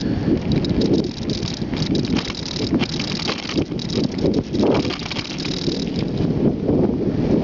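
Bicycle ridden over a rough, cracked road: continuous tyre noise with a dense, irregular clatter and rattle as the bike jolts over the bumps.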